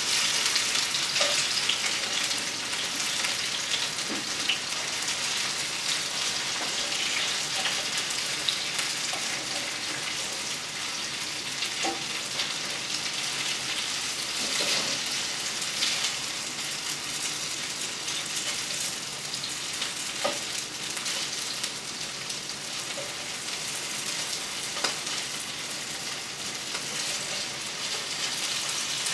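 Breaded okra frying in hot oil in a cast-iron skillet: a steady sizzle, with a few light clicks and scrapes as the pieces are turned over with plastic tongs.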